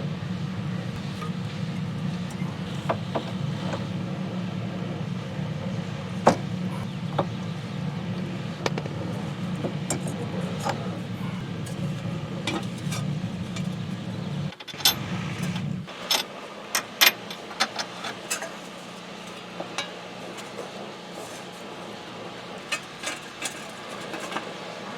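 Metal tools and parts clinking and clanking while the front wheel bearing assembly is taken back off, a series of sharp clicks, thickest about fifteen to eighteen seconds in. A steady low hum runs underneath and stops about fifteen seconds in.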